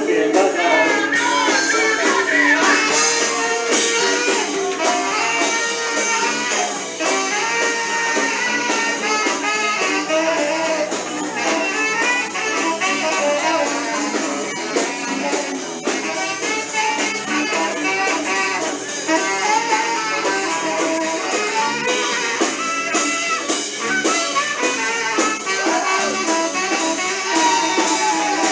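Blues band playing an instrumental passage, with melodic lead lines over a steady drum beat.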